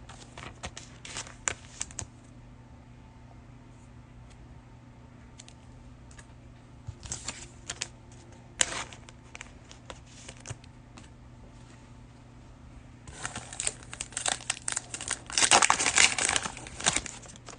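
Cellophane wrapper of a trading-card cello pack crinkling and tearing as it is opened, among scattered clicks of cards being handled. The crinkling is sparse at first and thick and loudest for the last few seconds.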